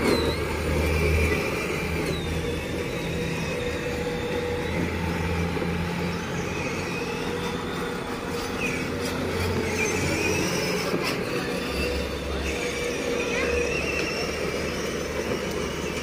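A low motor hum that starts and stops several times, with voices in the background.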